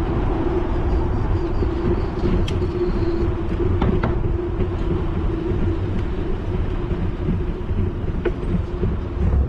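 Bicycle rolling along a concrete path, heard from the rider's action camera: a steady low noise of tyres and wind on the microphone, with a steady hum that fades out about six seconds in and a few light clicks.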